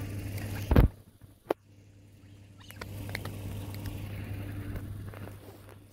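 Black swans pecking at grain scattered on sandy ground: soft scattered pattering and ticks, with a steady low hum underneath. A loud thump comes about a second in.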